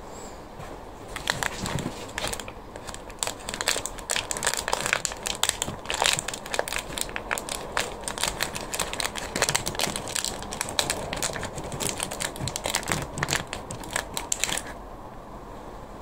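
Close crinkling and rustling handling noise from gloved hands and a sleeve working right by the microphone. It is a dense, irregular crackle that starts about a second in and stops abruptly near the end.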